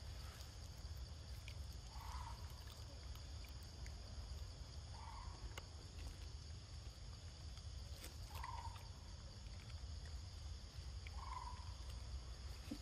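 Forest ambience: a short animal call repeats about every three seconds, four times, over a steady high buzz and a low rumble.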